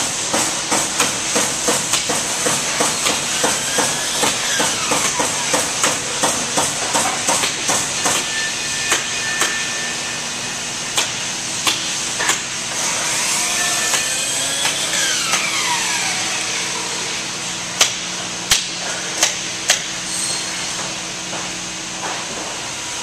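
Woodworking shop noise: quick, sharp knocks like hammering over a steady machinery hiss. About eight seconds in, a steady machine hum joins, with scattered single knocks later and a whine that twice rises and falls.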